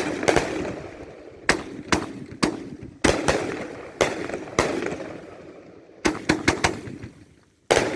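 Fireworks exploding in quick succession: about a dozen sharp bangs, often two or three close together, each trailing off in a rumbling echo.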